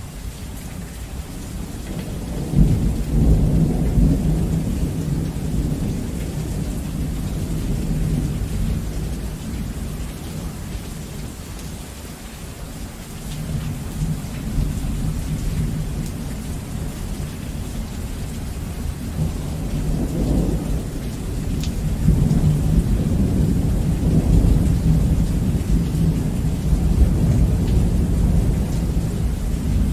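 Heavy rain falling steadily, with rolling thunder. Low rumbles swell about two seconds in, again near the middle, and through much of the last third.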